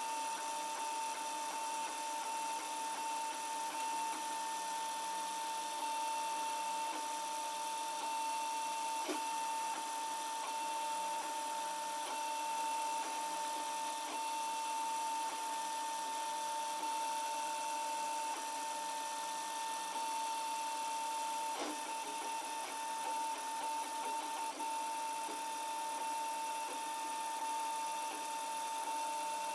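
Protomaker Black Sprint 3D printer running as it lays down the first layers of a print: a steady high whine with a few faint ticks.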